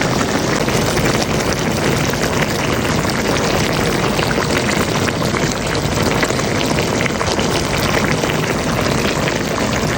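Chicken sizzling in a pan in its soy-sauce and soft-drink sauce, a steady crackling hiss.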